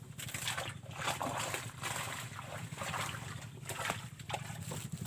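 Water splashing and lapping in small irregular splashes over a steady low hum.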